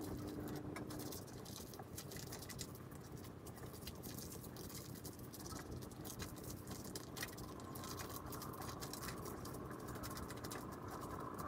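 Faint, irregular scratching and soft patters of a handheld facial cleansing brush being scrubbed over wet, lathered facial skin.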